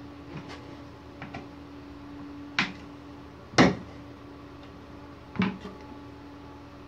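Plastic spring clamps being fitted to a bench edge: three sharp clacks as the jaws snap shut, the loudest a little past halfway, with a few fainter clicks of handling before them. A steady low hum runs underneath.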